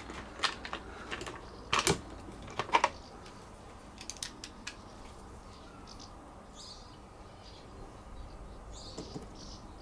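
Small tools and parts being handled on a table, a screwdriver taken from a cheap screwdriver set: several sharp clicks and knocks in the first three seconds, then quieter. Faint high chirping in the second half.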